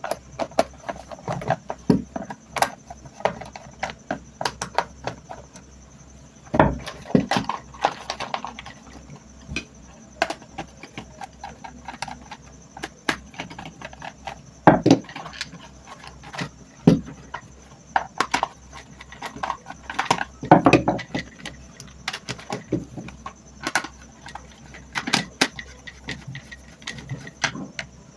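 Irregular clicks, taps and knocks from handling and opening the housing of a remote-control stand fan motor, with a few louder knocks.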